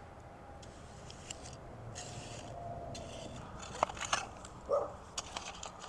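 Faint scraping and scuffing, with a few sharp clicks about four seconds in and a short dog bark near the end.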